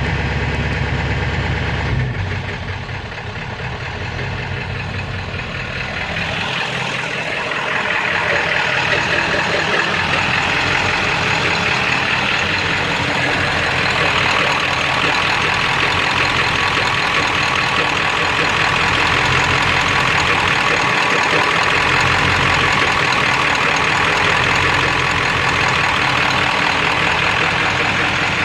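Ford 7.3 Power Stroke V8 turbo-diesel idling roughly, the rough running that goes with the owner's complaint of a knock and no power. About two seconds in the deep rumble drops away, and from about six seconds in a louder, higher-pitched running sound builds and then holds steady.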